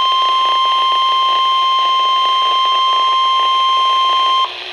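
NOAA Weather Radio 1050 Hz warning alarm tone, one steady high-pitched tone played over a weather radio, signalling that an urgent warning broadcast is about to follow. It cuts off suddenly near the end.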